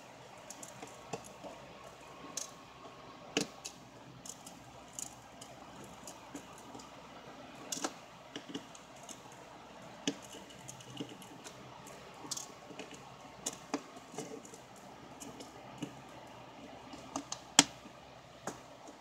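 Light, irregular clicks and taps from a precision screwdriver backing out the tiny Phillips screws of an LG Ultimate 2 phone's back frame, with one sharper tap near the end.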